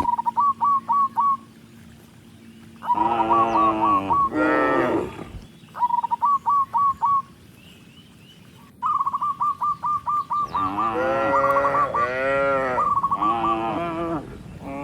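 Cattle mooing: two long calls about three seconds in, then several overlapping moos from about ten seconds on. Between them come quick runs of short, high chirping notes.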